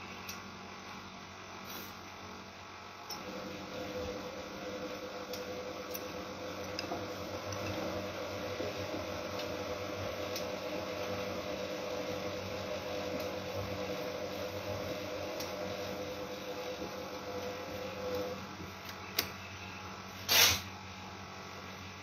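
Siemens Siwamat Plus 573 front-loading washing machine in its wash phase. Its motor starts a few seconds in and hums steadily as it turns the drum of wet laundry, then stops about fifteen seconds later: the pause of an interval wash. A click and then a short, louder sharp knock follow near the end.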